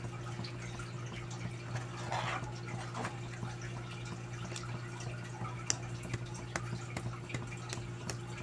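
Ladle stirring and lifting thick champorado in a pot, with scattered soft plops and clicks over a steady low hum.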